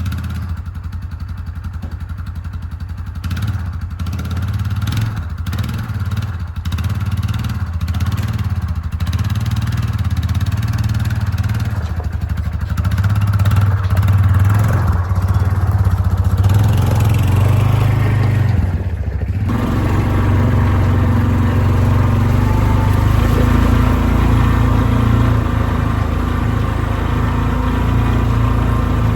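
Yamaha Rhino 450's single-cylinder engine running, with scattered clicks over it in the first part, then speeding up and settling into a steadier, louder run about twenty seconds in. The engine has a knock, which the owner has tried to soften with heavier-weight oil.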